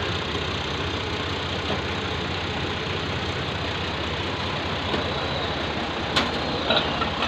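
Tractor engine idling steadily, with a sharp metallic click about six seconds in and a couple of lighter clicks just after.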